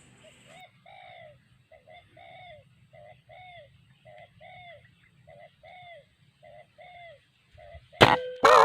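Spotted dove cooing: short, arched coo notes repeated in pairs and small groups. Near the end, a loud sharp crack from the pellet air rifle being fired at the dove.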